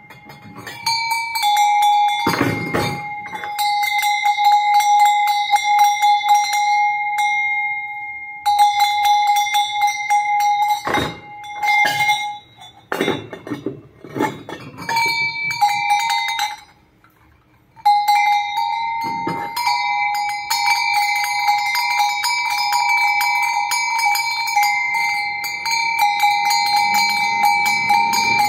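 Metal animal bells (çan) made by Karaca ringing as they are shaken, the clappers striking rapidly and unevenly over a few steady ringing tones. The ringing stops briefly about two-thirds of the way through, then carries on.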